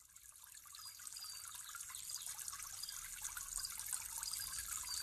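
Trickling, dripping water that fades in gradually out of silence, with many small ticks and a few short high plinks.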